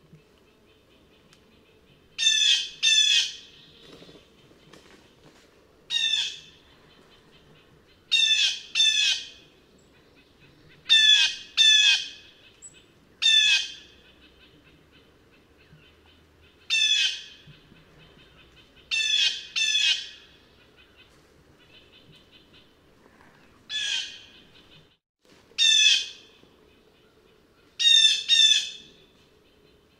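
Blue jay giving its harsh, squawking jay call, repeated singly or in quick pairs every two to three seconds.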